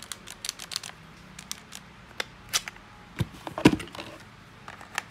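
Cordless drill being handled before a test run: scattered sharp plastic clicks and taps, with a louder knock a little past halfway.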